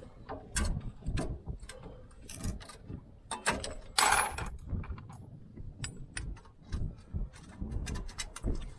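Hand tools working on a van's rear brake: irregular metallic clicks and knocks, with a short scraping rasp about four seconds in.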